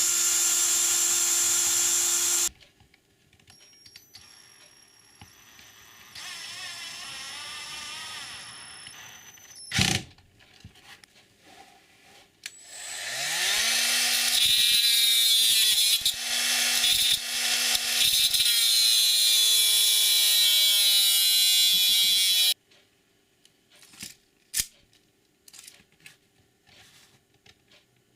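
Power drill motor running in bursts: a short run at the start, then spinning up about twelve seconds in and running for about ten seconds, its pitch dipping now and then as it bites into the work. A sharp knock comes about ten seconds in, and light clicks and knocks follow near the end.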